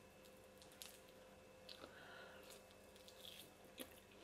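Near silence: faint wet mouth sounds of a person chewing a piece of steak, a few soft smacks and clicks over a faint steady hum.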